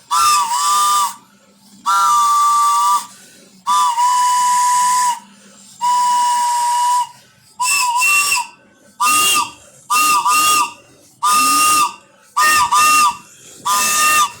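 Hand-held train whistle blown in a series of toots, each a breathy two-note chord. First come about four long blasts of roughly a second each, then a quicker run of short toots.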